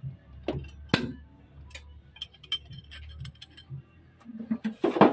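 Steel combination wrench clicking and clinking against the injection pump coupling bolts of a Fuso 8DC9 diesel engine as they are worked by hand: scattered sharp metal ticks, one loud clink about a second in and a louder flurry near the end.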